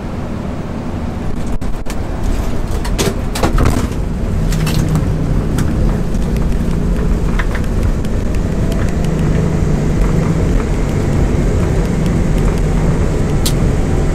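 Airbus A220-300 on its landing roll on a wet runway, heard from inside the cockpit: a loud, steady rumble of engines and wheels with a low hum. Several sharp clicks and knocks come through it, most of them in the first few seconds.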